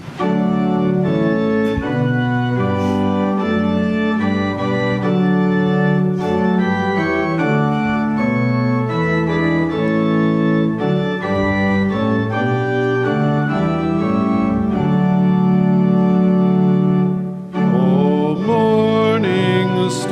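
Pipe organ playing the introduction to a hymn in sustained full chords. After a brief break near the end, the congregation comes in singing with the organ.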